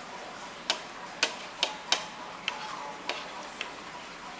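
Kitchen utensils and dishes clinking and knocking: a string of about seven sharp clicks at irregular spacing, roughly one every half second, some ringing briefly.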